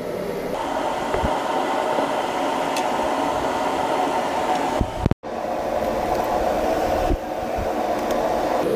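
Electric power tool spinning a wire wheel brush against rusty, painted steel, running steadily as it scrubs the metal. It cuts off abruptly about five seconds in and starts again straight away.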